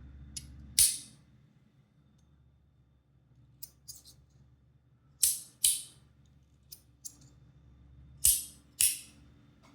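Zirconium magnetic fidget slider being slid back and forth, its plates snapping into place with sharp metallic clicks. The loudest clicks come in pairs about half a second apart, with a few softer ones between.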